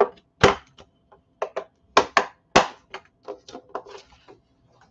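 A stylus and cardstock on a scoring board: a string of short, sharp taps and clicks as the card is scored and shifted on the board. The loudest come about half a second in and around two and a half seconds in.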